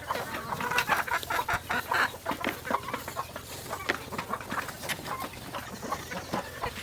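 A flock of chickens clucking, with many short overlapping clucks and calls.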